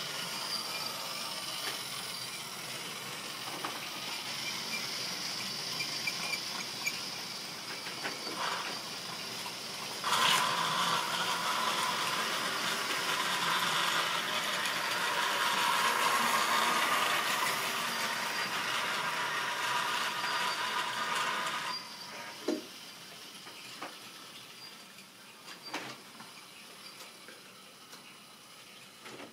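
Model railway goods train running on sectional track: a steady whirring rattle of motor and wheels. It grows louder about a third of the way in as the wagons pass close, then stops abruptly about two-thirds in. A few sharp clicks follow near the end.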